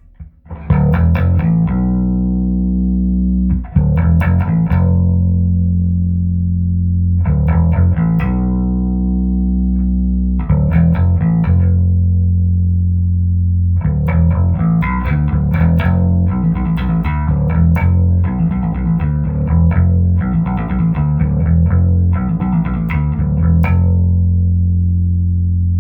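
Electric bass guitar, a Hohner B bass fitted with Seymour Duncan Quarter Pound J pickups, played clean with no effects through a Trace Elliot 12T combo amp driving a 1518T speaker cabinet, with the pre-shape on and light compression. First come long low notes left to ring for a few seconds each, then, a little past halfway, a faster run of short repeated notes.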